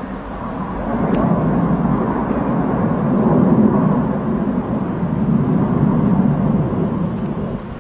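Aircraft flying past: a loud, noisy rumble that builds about a second in, holds for several seconds and falls away near the end.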